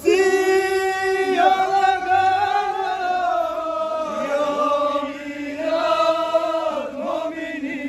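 A crowd of voices chanting in unison, each call drawn out into a long held note, one after another.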